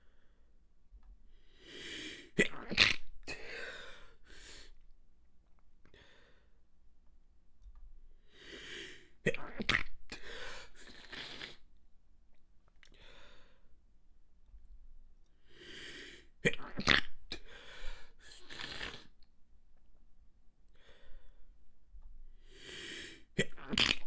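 A woman's stifled sneezes, four bouts roughly seven seconds apart. Each is a breath drawn in, then one or two sharp, held-back bursts. The tickle keeps coming back and sets off the next sneeze.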